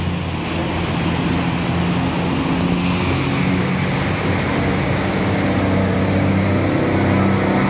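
Cargo barge's engine running hard as it accelerates, a steady low drone, with the bow wave rushing along the steel hull. It grows slightly louder as the barge passes close by.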